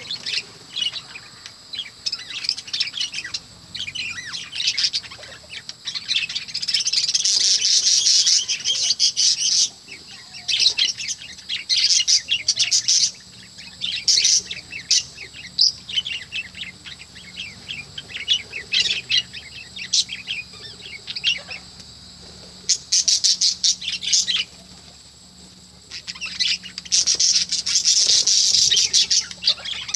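Budgerigar chatter: rapid high chirps and warbles in long bursts, with brief quieter gaps between them.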